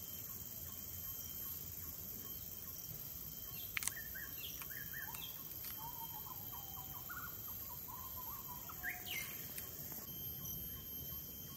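Wild birds chirping and warbling over a steady outdoor hiss, with a short run of quick notes and a rising call near the end. A single sharp click comes about four seconds in.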